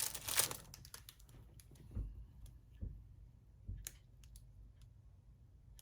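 Quiet handling of silicone molds and their packaging: a brief rustle at the start, then a few soft knocks and faint clicks.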